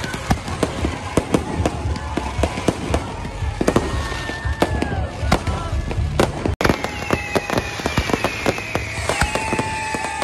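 Aerial fireworks display going off: a dense, fast run of bangs and crackles, breaking off for an instant about two-thirds of the way through.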